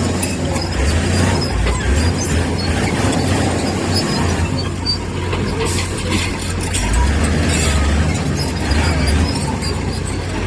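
Bulldozer's diesel engine running steadily with a deep rumble, with a few brief metallic clanks.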